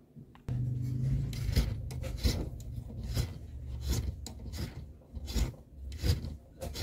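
Violin peg reamer twisted by hand in a guitar headstock's tuner hole, scraping the wood in repeated rasping strokes as it cuts the hole wider. A steady low hum starts about half a second in underneath.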